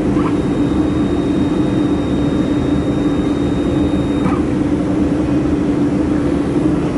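Steady machine drone of a laser welding machine setup running, with a faint high-pitched whine over it that stops about four seconds in.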